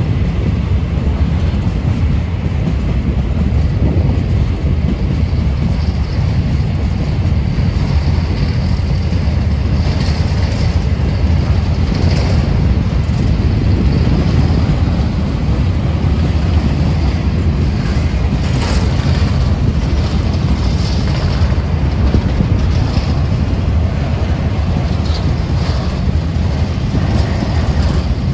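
Empty grain hopper wagons of a freight train rolling past on the rails, a steady loud rumble of wheels on track with occasional brief high squeals.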